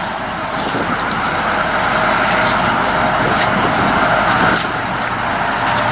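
Carbureted 350 V8 of a one-ton dump truck idling steadily, with a few sharp clicks and crackles over it.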